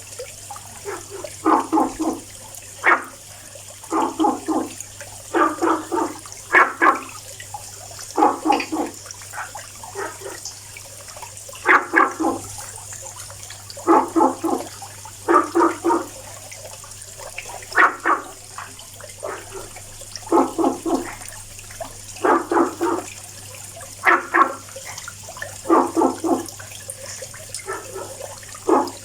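Frogs singing: short calls about half a second long, repeated every second or two and often in quick pairs, over a faint steady hiss.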